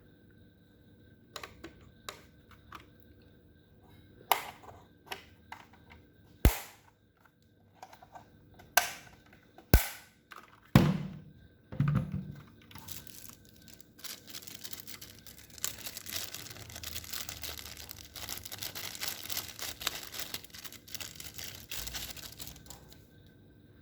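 AKKO 3087 mechanical keyboard: a scatter of separate clacks and knocks, then from about halfway, fast continuous typing on the keys, stopping near the end.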